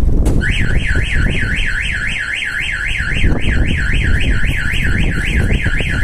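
Starline van alarm siren triggered by force applied to the van, sounding a fast up-and-down warble about four sweeps a second. It starts about half a second in, over a low rumble.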